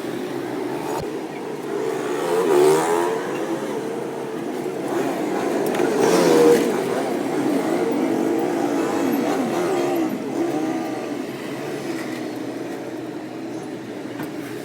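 Motor vehicle engines running steadily, with two louder swells about two and a half and six and a half seconds in, as if vehicles are passing close by.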